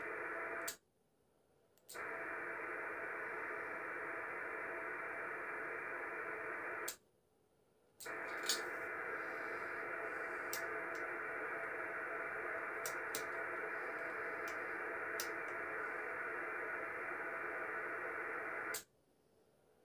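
Receiver hiss and static from a Yaesu FT-450D transceiver's speaker, tuned to 27.565 MHz on the 11-metre band. The hiss cuts out completely three times for about a second, and there are a few faint clicks.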